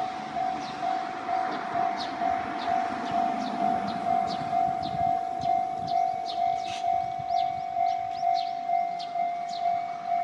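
Japanese railway level-crossing alarm ringing steadily, a repeated electronic ding about twice a second. A broad rumble under it fades away over the first few seconds.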